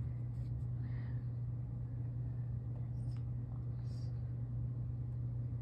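A steady low hum, with faint brief rustles as the latex mask and its hair are handled.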